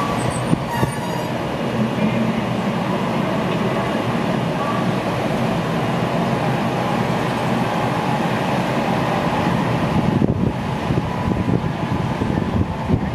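ChS7 electric locomotive rolling slowly toward its train, a steady rushing hum of the running locomotive and its wheels on the rails, a little louder in the last few seconds.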